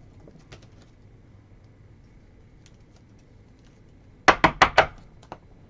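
Trading cards and packs being handled on a table: a few faint clicks, then a quick run of four sharp taps about four seconds in, followed by a couple of light clicks.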